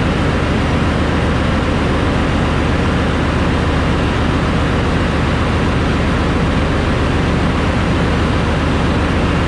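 Ship's engine-room machinery running steadily: a loud, even din with a low hum beneath it.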